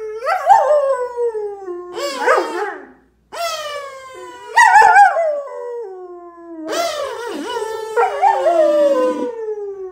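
German Shepherd whining and howling in three long, wavering cries that each slide down in pitch.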